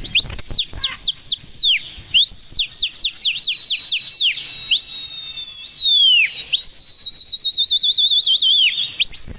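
Loud shrill human whistling of the kind pigeon keepers use to drive their flock in flight. It starts with quick runs of short rising-and-falling whistles, then a long falling whistle, then a fast warbling trill held for about two seconds, and one more swooping whistle near the end.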